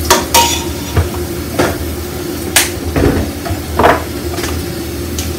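Irregular sharp clicks and knocks, about eight in five seconds, from a metal cooking utensil and spice containers being handled against a stainless steel pot and the counter, over a steady low hum.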